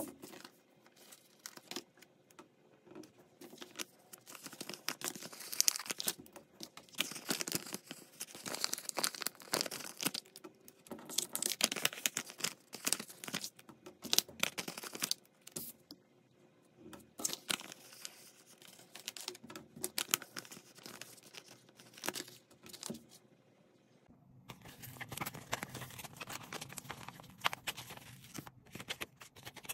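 Vinyl stickers being peeled off a glossy backing sheet by hand and pressed onto paper: crackly peeling and crinkling in uneven bursts, with small taps and rubs, and a brief pause about three-quarters of the way through.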